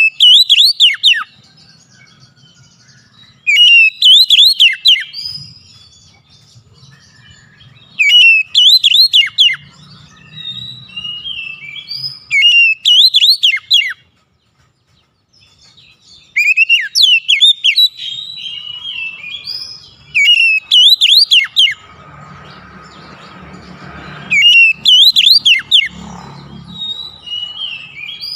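Male Oriental magpie-robin singing: loud bursts of fast, rising and falling whistled notes about every four seconds, with softer chirps between them.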